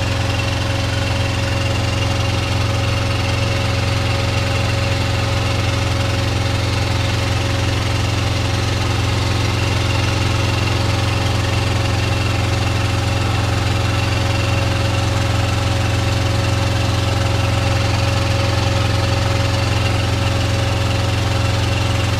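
An engine running steadily at idle: a constant low drone with a faint steady whine above it, unchanging throughout.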